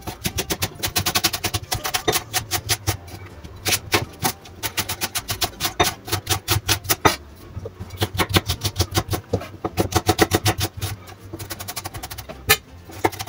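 Chef's knife chopping leek and onion on a wooden end-grain cutting board: quick runs of sharp knocks, about six a second, broken by short pauses.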